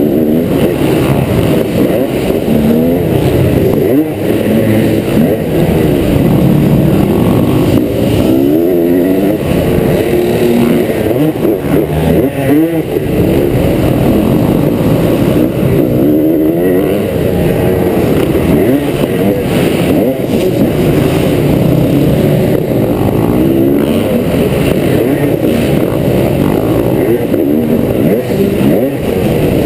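2003 Honda CR250R's single-cylinder two-stroke engine being ridden hard on a dirt motocross track, its pitch rising and falling over and over as the rider opens and closes the throttle through corners and jumps.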